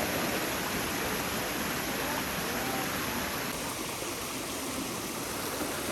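Steady rush of flowing water, an even noise with no breaks, shifting slightly a little over halfway through.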